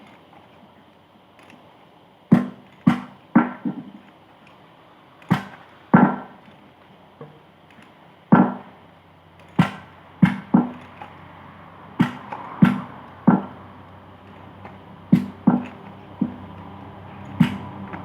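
Hammer striking metal about fifteen times at uneven intervals, some blows in quick pairs or threes. Each blow rings briefly and dies away.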